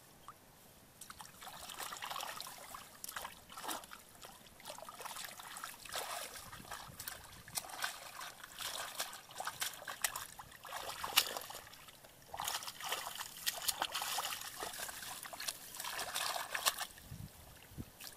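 Hands groping and sloshing through shallow muddy water, with irregular splashing and trickling, beginning about a second in.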